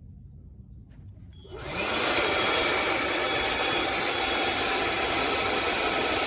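HiKOKI RB18DC cordless blower switched on about a second and a half in, its motor whine rising as it spins up, then blowing a loud, steady rush of air.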